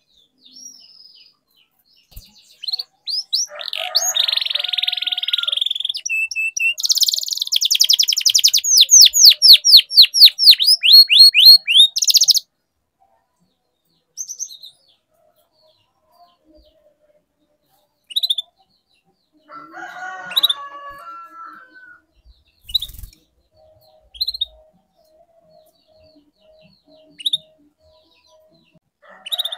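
Domestic canary singing: a long run of song that ends in a fast trill of repeated sweeping notes about twelve seconds in. After that come scattered short chirps, a brief phrase, and a faint run of evenly repeated notes near the end.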